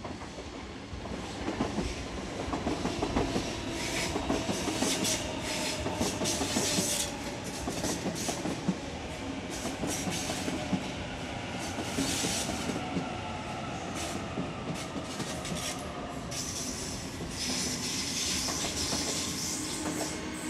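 A Sydney Trains Waratah double-deck electric train passing close by. Its wheels clatter over the pointwork and squeal in high bursts several times, over a faint electric whine that falls slowly in pitch.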